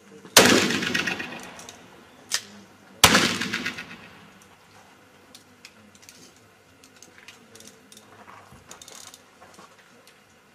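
Two loud black powder pistol shots about two and a half seconds apart, each trailing off in a long echo, with a quieter sharp crack between them.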